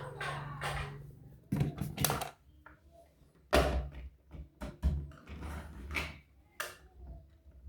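Irregular knocks and thuds of objects being handled and set down, the sharpest about one and a half, two, three and a half, five and six and a half seconds in, over a faint steady low hum.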